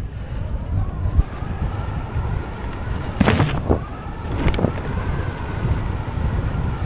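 Wind buffeting the camera microphone and tyres rumbling over the trail as a mountain bike descends at speed, with two brief, louder hissing bursts a little past the middle.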